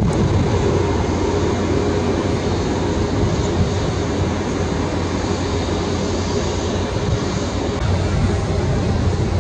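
Jet engine noise of a Boeing 737 MAX (CFM LEAP-1B), heard from a distance as a steady rumble and hiss while the airliner rolls slowly along the runway, with one engine shut down after a single-engine landing.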